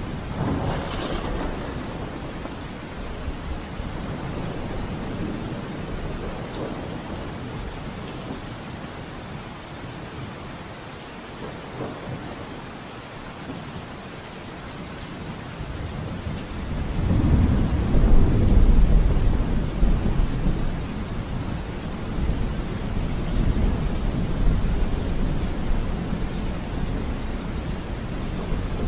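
Steady rain with rolling thunder. A long, deep peal of thunder swells about halfway through and dies away over several seconds.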